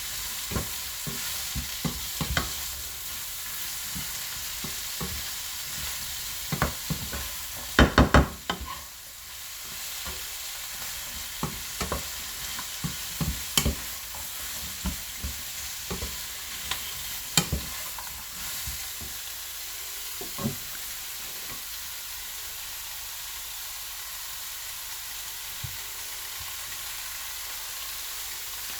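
Stir-fry sizzling in a hot pan, a steady hiss, while it is stirred with a utensil that clacks and knocks against the pan. About eight seconds in comes a quick run of loud knocks, and in the last third the clatter stops and only the sizzle goes on.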